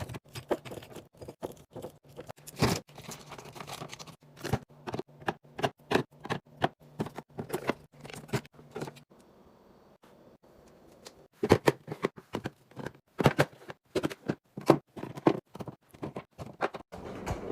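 Irregular clicks, knocks and light scrapes of packages and containers being handled and set down while a fridge is restocked, with a short lull about halfway through.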